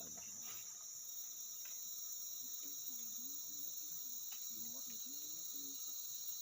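Steady, high-pitched chorus of forest insects, crickets or cicadas, shrilling on several pitches at once without a break.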